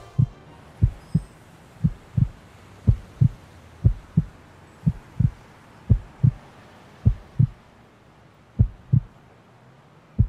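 Heartbeat sound effect: pairs of low thumps, lub-dub, about once a second, spacing out slightly near the end.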